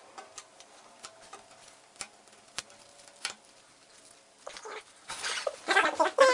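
Cardboard jigsaw puzzle pieces clicking and tapping as they are handled and fitted into a plastic puzzle frame, then a louder stretch of scraping and rustling for the last second or so as the final pieces are pressed into place.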